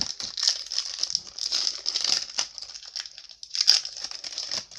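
Foil wrapper of a 2018 Topps Chrome baseball card pack crinkling in irregular bursts as it is torn open and handled, with sharper crackles at the start and near the end.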